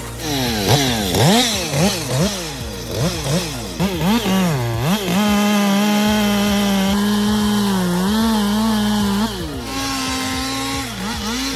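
Stihl two-stroke chainsaw revving up and down over and over for about five seconds, then held at steady high revs for about four seconds before dropping back near the end.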